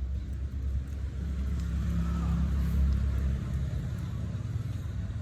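Low engine rumble, swelling to its loudest a little under three seconds in and easing off soon after.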